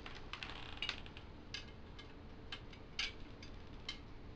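Bicycle spokes clicking and ticking against each other and the rim as a loose spoke is threaded through a half-laced wheel: irregular light metallic clicks, the loudest about three seconds in.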